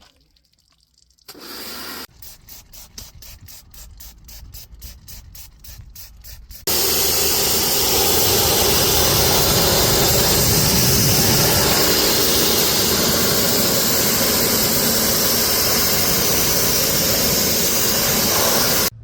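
Water spraying during a car wash: first a run of short rhythmic spurts, about four a second, then a loud steady spray hiss from about seven seconds in that cuts off suddenly near the end.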